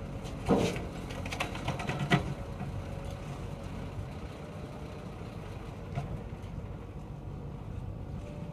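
Backhoe loader's diesel engine running steadily at work, with a cluster of sharp knocks and clanks from about half a second to two seconds in and one more knock near six seconds.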